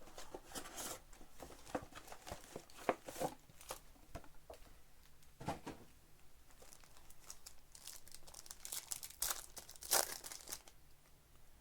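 A trading-card box being opened and its packs handled: irregular crinkling and tearing of cardboard and pack wrappers, busiest near the end and then dying down.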